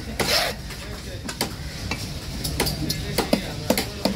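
Heavy fish-cutting knife working a trevally on a wooden stump chopping block. A short scraping swish comes just after the start, then a run of sharp, irregular knocks, some in quick pairs. Faint market voices run underneath.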